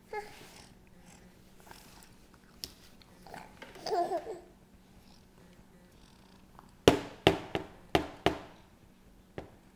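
A toddler laughs briefly, then bangs a plastic sippy cup down on a high chair's plastic tray about five times in quick succession, each a sharp knock.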